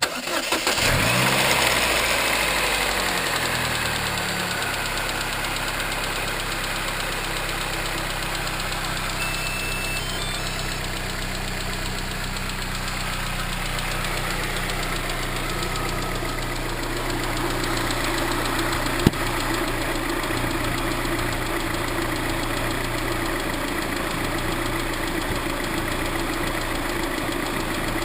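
Chevrolet Cobalt SS supercharged 2.0-litre four-cylinder starting, briefly rising in speed and then settling to a steady idle with a ping-type knocking rattle. The owner says the rattle began soon after the dealership fitted a new tensioner. One sharp click about two-thirds of the way through.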